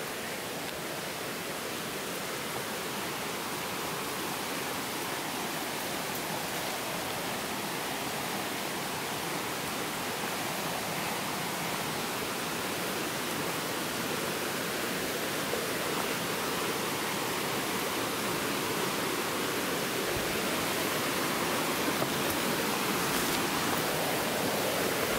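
Creek water rushing over rocks in small rapids, a steady rush that grows gradually louder as the creek gets closer.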